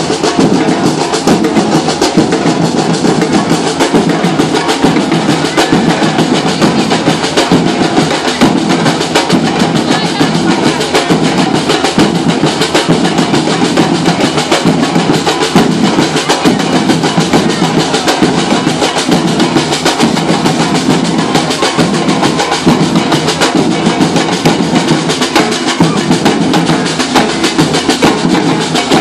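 Samba percussion band (bateria) playing a steady, driving groove on surdo bass drums and other drums.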